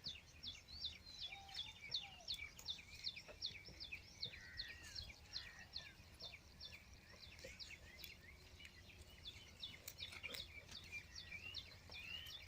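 Birds calling outdoors: a fast, steady string of short, high, falling chirps, about three or four a second, over a faint low background rumble.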